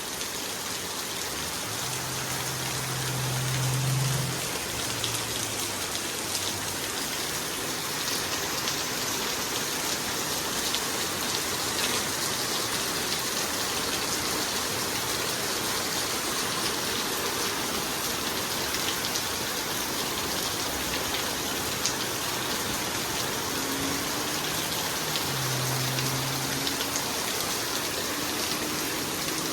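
Heavy thunderstorm rain pouring steadily, with scattered drops ticking close by. A faint low hum comes and goes twice.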